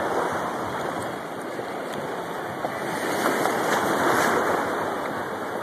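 Shallow seawater sloshing and lapping around a jet ski and people wading beside it, a steady rush that swells a little louder a few seconds in.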